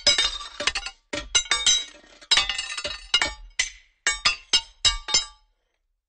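Metal banging against rocks: about twenty sharp, irregular clanking strikes, each ringing briefly, stopping suddenly about five and a half seconds in.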